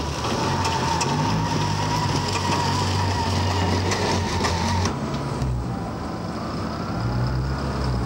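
Steady low machinery drone from the Deeside Aluminium plant, with a thin high whine above it. About five seconds in the whine stops and the drone eases off briefly before it builds again.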